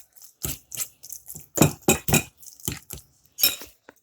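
Dishes and cutlery clinking and knocking: a string of short, sharp clinks, one ringing briefly near the end.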